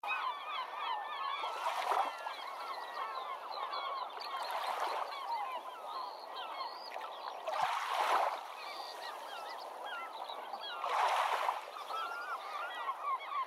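A large flock of birds calling continuously, many short honking calls overlapping. A rushing noise swells and fades about every three seconds.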